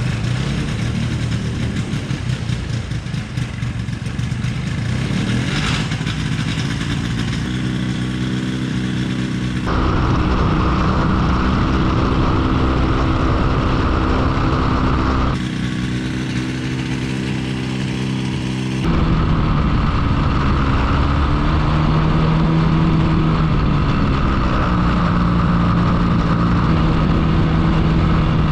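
Small air-cooled aircraft engine running with its propeller turning, a steady engine note that jumps suddenly in loudness several times and dips then rises in pitch with the throttle about two-thirds of the way through.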